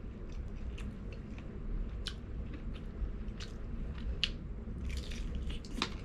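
A man chewing and biting crispy fried chicken close to the microphone, with irregular crunches of the breading and wet mouth sounds.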